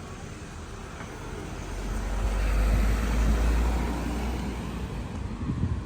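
A vehicle passing close by in city traffic: a broad rushing noise that grows to its loudest about halfway through, then fades away.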